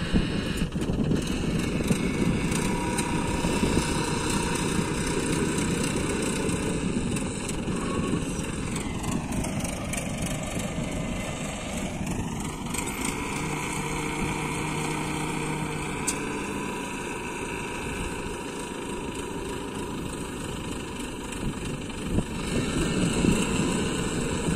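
Mobile crane's engine running steadily at a railway track-laying site.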